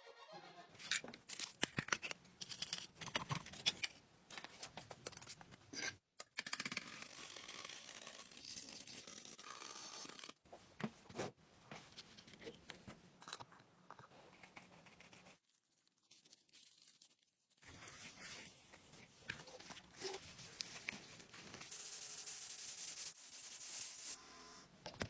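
Irregular scraping, rubbing and tearing sounds with scattered sharp clicks and knocks, as of hand work on an object being restored. There is a short pause about two-thirds of the way through.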